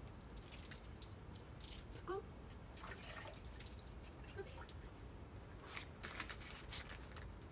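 Water dripping and splashing in short, scattered spatters, with a few brief faint squeaks, the loudest about two seconds in.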